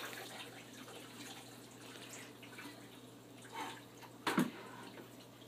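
Faint dripping of ice water running off onto a shower floor, with one sharp knock about four seconds in.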